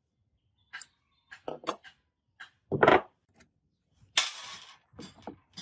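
Workshop handling sounds of hand tools and parts on a wooden bench: a few scattered clicks, one louder knock about three seconds in, and a short rustling rush just after four seconds.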